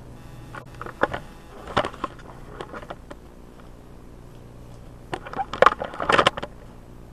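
Handling noise: clusters of knocks and clatter, once about a second in and again, louder, around five to six seconds in, as the camera is picked up and repositioned.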